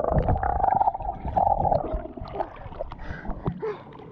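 Swimming-pool water and bubbles heard from a camera held underwater, muffled and gurgling, with two short held tones in the first two seconds. The sound grows fainter after about two seconds.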